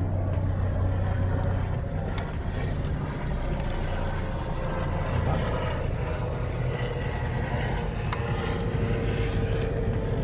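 A steady low motor drone, with a few sharp light clicks as plastic clips and an electrical connector are pushed home.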